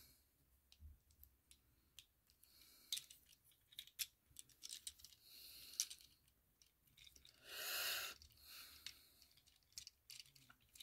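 Faint clicks and scrapes of the plastic joints and parts of a Transformers Legacy Armada Hot Shot figure being turned and folded by hand, with a short soft hiss about three quarters of the way through.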